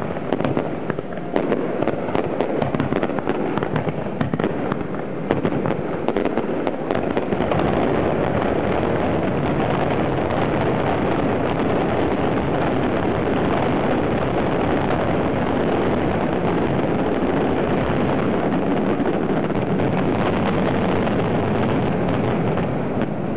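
Fireworks heard close up from the firing site: a rapid string of launches and bursts for the first several seconds, which then merge into one continuous dense barrage of shells firing and bursting.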